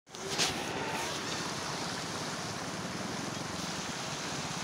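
Swollen river in spate, brown floodwater rushing steadily past and over a low concrete causeway. A brief knock sounds about half a second in.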